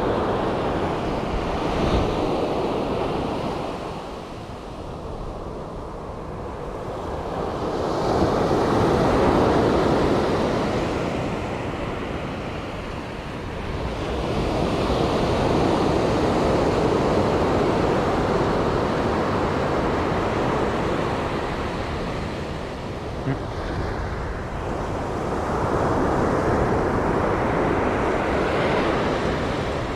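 Sea waves breaking and washing on the shore, swelling and fading in slow surges about every eight seconds, with wind buffeting the microphone.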